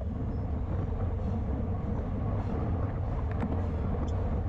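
Wind rushing over a bike-mounted action camera's microphone together with tyre and road noise from a racing bicycle at speed, a steady low rushing sound.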